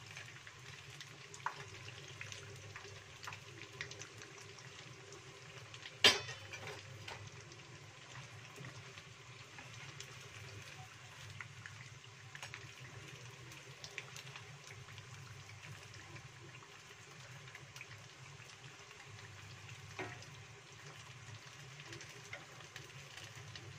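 Tapioca-battered tofu pieces deep-frying in hot cooking oil in a wok: a steady sizzle, with a few light clicks from the metal skimmer and wooden spatula and one sharp knock about six seconds in.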